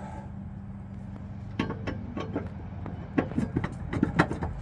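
Sharp metallic clicks and knocks of hands and tools working at a ride-on mower's steel cutting deck, coming in a string from about a second and a half in, the loudest near the end. A steady low hum runs underneath.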